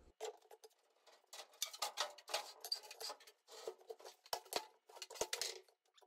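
Faint, irregular clatter of clicks and short knocks from plywood shelving boards being handled and moved, thin and tinny with no low end.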